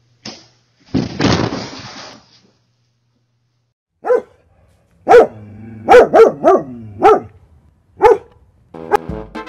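A dog barking: seven or eight short, sharp barks over about four seconds, some in quick pairs. They follow a brief rushing noise about a second in.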